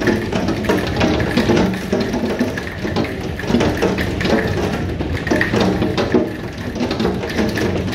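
Hail and rain pelting a roof, heard from inside a building: a dense, steady clatter of many small impacts.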